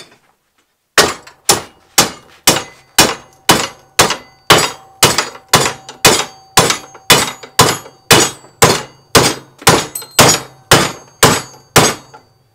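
Hammer striking a steel bracket clamped in a bench vise, about two hard blows a second for some ten seconds, each with a short metallic ring: the bracket is being hammered over to bend it.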